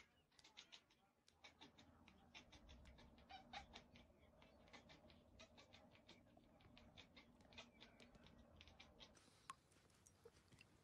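Tabby cat chattering: faint quick runs of clicking, several clicks a second, broken by short pauses. Near the end a few separate light clicks.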